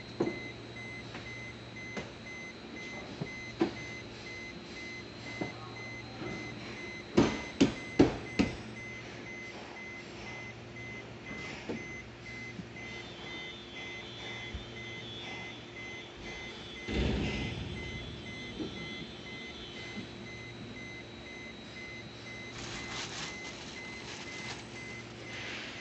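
Electronic beeping, a steady quick high-pitched repeat, runs throughout. Over it come scattered clicks and knocks from plastic floor mats and trim being fitted in a car footwell, with a cluster of sharp clicks about seven to eight seconds in and a heavier thump about seventeen seconds in.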